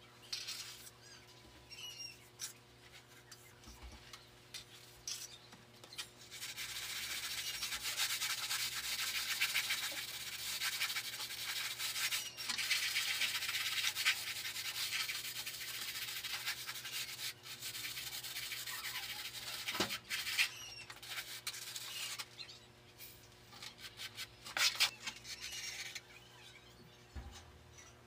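Plastering float or trowel rubbing and scraping over cement render on a beam. It gives scattered strokes at first, then a long run of rapid, continuous rubbing in the middle, then scattered scrapes again.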